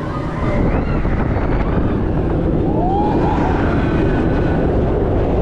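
Heavy wind rushing over the microphone as the Electric Eel roller coaster train runs at speed along its track.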